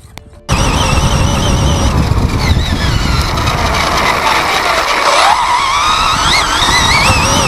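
Brushless RC buggy (3650 6900kv motor) running: a high motor whine over rough rumbling noise, starting suddenly about half a second in. The whine drops in pitch about five seconds in and rises again as the car slows and speeds back up.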